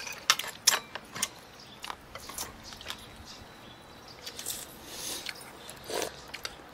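Eating at a seafood hotpot: chewing, with irregular sharp clicks and taps of chopsticks and metal spoons against bowls and the pot.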